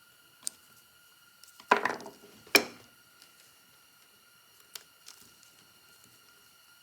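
Small metal parts and a screwdriver clicking and clattering while the fine adjustment screw is fitted into an Amberola V phonograph carriage. There is a light click, then a short rattle about two seconds in and a sharp click just after it, then two faint ticks near the end.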